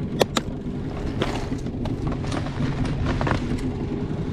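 Boat motor running steadily at trolling speed, with two sharp clicks in the first half second.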